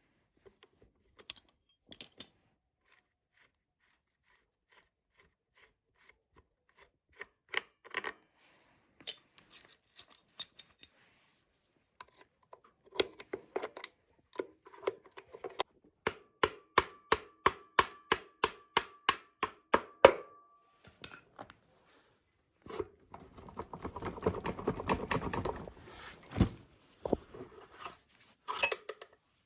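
Hand tools working on motorcycle parts. Scattered clicks and knocks, then a run of regular sharp taps at about three a second, some of them ringing. Near the end comes a few seconds of rubbing or scraping.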